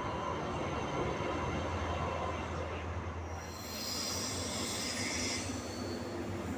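ÖBB class 2070 diesel shunting locomotive passing with its engine running in a steady low hum. About halfway through, a high-pitched steel-wheel squeal rises over it for a couple of seconds.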